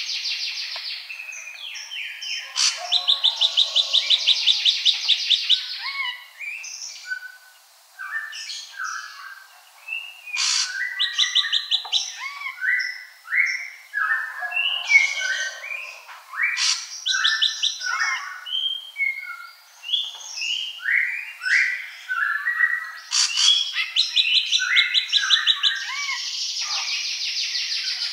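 Ashy drongo singing a varied song of short whistled notes, broken several times by a rapid trill.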